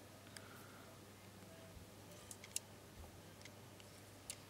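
Near silence with a few faint, sharp clicks, the clearest about two and a half seconds in and near the end: wires and plastic wire markers being handled at a contactor's terminals, over a faint steady hum.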